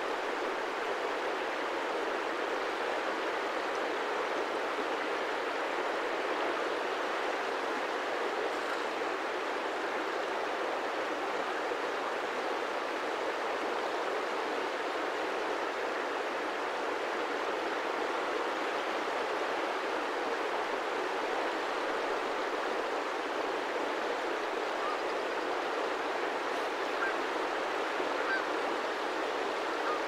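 Wide, shallow river flowing over stones and small riffles: a steady, even rush of water.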